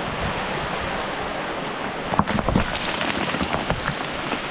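Steady rush of falling water, with short crunching and clattering steps on loose rock starting about two seconds in.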